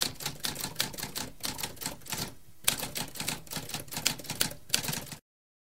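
Typewriter keys clacking in a quick, uneven run of keystrokes, pausing briefly a little past two seconds before a heavier strike and more typing, then stopping abruptly about five seconds in.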